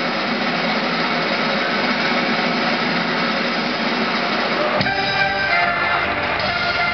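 Live circus band music: a dense, noisy passage changes abruptly, almost five seconds in, to sustained melodic notes.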